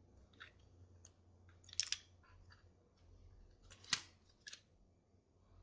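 Plastic casing of a game controller being pulled apart, giving a few light plastic clicks and taps, with a short cluster just under two seconds in and the sharpest click about four seconds in.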